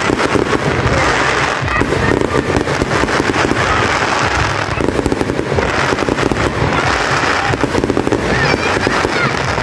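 Fireworks display with shells bursting in a dense, rapid stream of crackling pops and bangs that never lets up.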